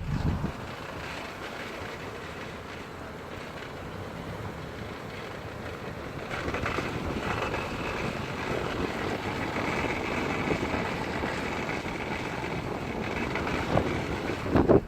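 Opel Zafira Tourer driving, with a steady rumble and a high whine that comes in about six seconds in and holds: the unexplained strange sound, its faulty part unknown.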